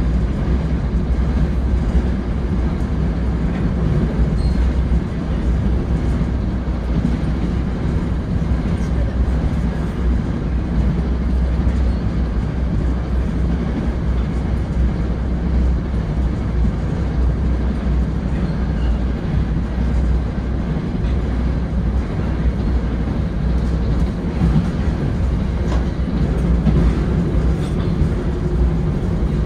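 Steady running noise inside an NJ Transit Bombardier Comet IIM passenger coach in motion: a constant low rumble of wheels on rail and car body.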